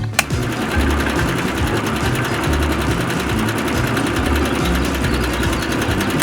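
A small motor running at a steady, fast speed, with a rapid buzzing rattle. It starts just after a click near the start and stops at the end, with background music underneath.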